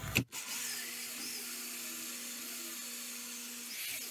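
Corded electric drill with a hole saw running faintly and steadily: a low, even hum with a light hiss.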